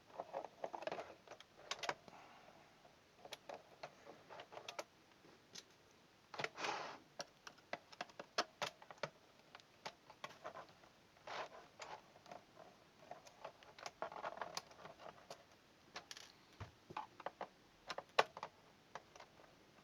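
Irregular clicks, taps and brief scrapes of an old mechanical keyboard's plastic case and keys being handled and worked on during disassembly, with one sharper click near the end.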